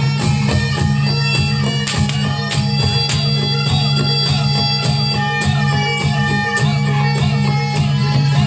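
Reog Ponorogo accompaniment music played loud and without a break: a high reedy melody line held in long notes over a steady low drone, with regular drum and gong-chime strokes.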